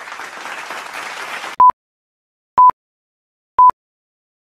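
Applause sound effect for about a second and a half, stopping abruptly, then three short, identical beeps one second apart from a video countdown.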